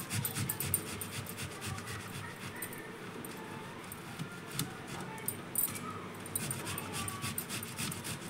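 Boiled potato being grated on a stainless-steel box grater: repeated scraping strokes, a few a second. A faint high whine comes and goes in the background.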